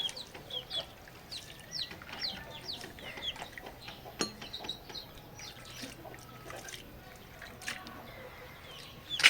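Chickens calling: a steady run of short, high, falling chirps, several a second, with a sharp click about four seconds in and a louder one near the end.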